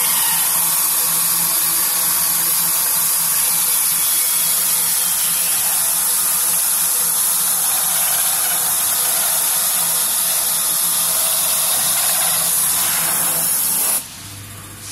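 CNC router (pantograph) running: a steady, loud hissing whir from the spindle and cutting, with a faint steady hum beneath. It cuts off suddenly about a second before the end.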